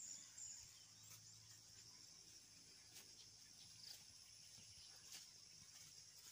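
Near silence, with a faint steady high-pitched buzz of insects in the background and a few faint clicks.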